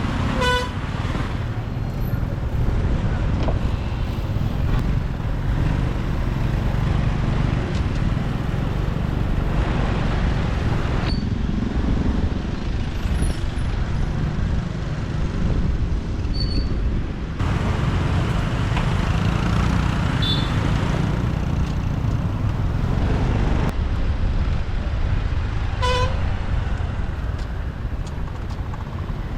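Steady road, engine and wind rumble from riding a motorbike in city traffic, with a short vehicle-horn toot about half a second in and another near the end.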